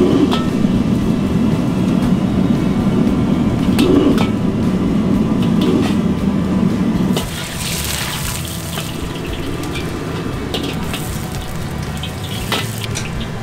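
Commercial gas wok burner roaring under a carbon-steel wok; the low roar drops away about seven seconds in. Then water hisses in the hot wok, with scraping strokes of a bamboo wok brush as the wok is rinsed out.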